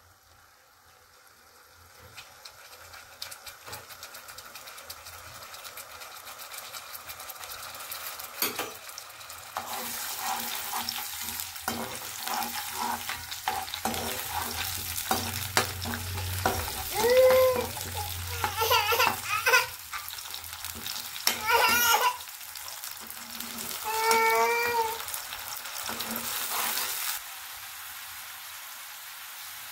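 Chilli paste frying in hot oil in a kadai, the sizzle building, then a loud dense hissing sizzle as water is poured onto the hot oil, which stops abruptly near the end and leaves a quieter steady bubbling. A few short high-pitched cries, like a small child's voice, sound over the sizzle in the second half.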